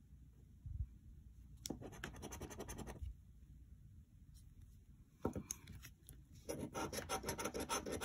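A large metal coin scraping the latex coating off a paper scratch-off lottery ticket, in runs of quick back-and-forth strokes: one run about two seconds in, a short one past five seconds, and steadier scratching through the last second and a half.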